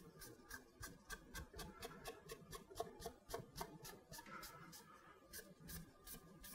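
Faint background music with a quick, even ticking beat, about six ticks a second.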